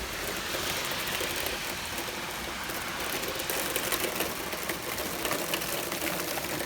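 Steady rain shower falling, with drops ticking rapidly on a nearby surface.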